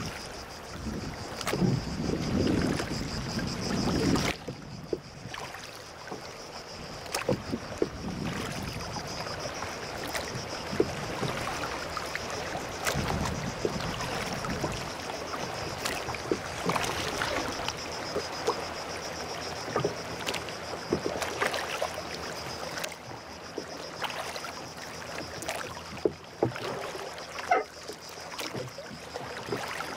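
Rowing boat under oars on calm sea: water sloshing and splashing against the hull and oar blades, with scattered irregular knocks. Low wind rumble in the first few seconds and a steady high-pitched hiss throughout.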